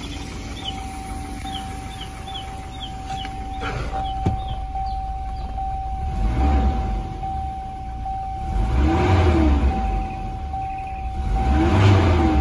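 1990 Volvo 760 GLE's 2.3-litre turbocharged four-cylinder engine idling, then revved three times, each rev rising and falling in pitch. A steady electronic warning chime repeats behind it.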